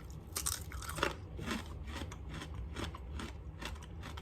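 A person biting into and chewing crisp, thin-cut pork bacon, giving an irregular run of crunches.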